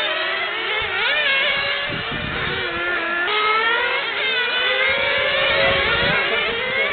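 Small two-stroke engines of several radio-controlled model cars running at once, a high buzzing whine. The pitches keep rising and falling as the cars accelerate and brake through the corners of the track.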